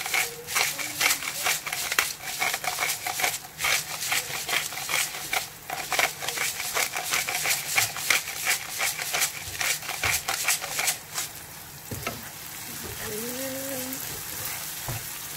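Chopped onion, garlic and ginger frying in oil in a nonstick pan, sizzling, while a wooden spatula stirs and scrapes against the pan in quick clicks. The stirring stops about three-quarters of the way through, leaving a steady sizzle.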